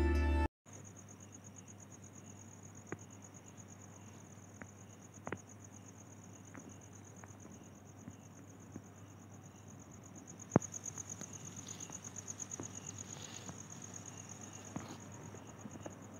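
A cricket trills steadily at night, a rapid high pulsing that grows louder from about ten seconds in. It starts after music cuts off half a second in, and a few sharp clicks sound over it, the loudest about ten and a half seconds in.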